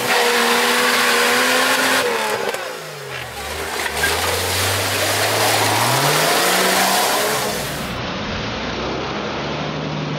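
Jeep Wrangler's engine revving hard as it spins its tyres through deep mud, with mud and water spraying. The engine note drops after about two seconds, stays low, then climbs again near the middle.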